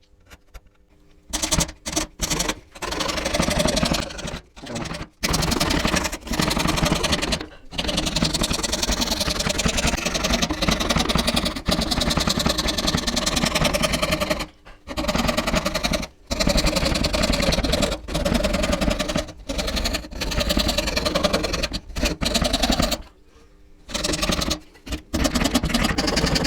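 A saw cutting through a thin wooden board with fast, even strokes, in runs of several seconds broken by brief stops.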